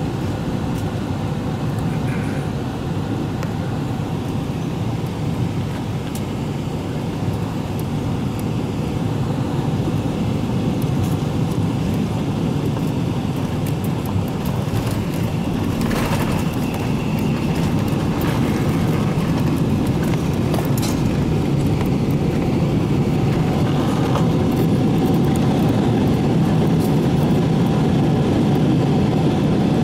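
Cabin noise of a Boeing 777-300ER landing, heard inside by the window: a steady rush of airflow and GE90 engines, a thump about halfway through as the wheels meet the runway, then the noise growing louder as the jet rolls out along the runway.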